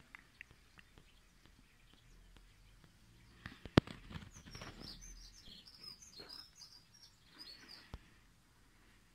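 Bird song: a sharp click about four seconds in, then a few seconds of quick, squeaky chirps and whistles that stop just before the end.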